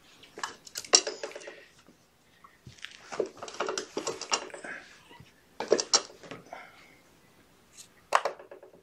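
Bursts of clattering and rustling, in four short clusters, from kittens scrambling and being handled around a plastic scale and towel.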